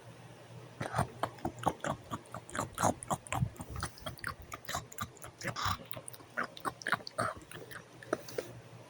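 Wet mouth-smacking and chomping noises, a person acting out the toy chewing a gumball: a long run of irregular smacks and snorty grunts.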